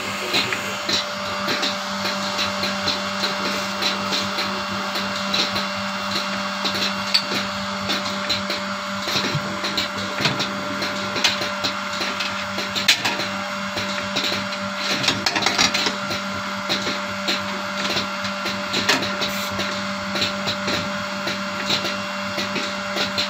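Machinery running: a steady hum with a constant whine, under rapid, irregular clicking and clattering.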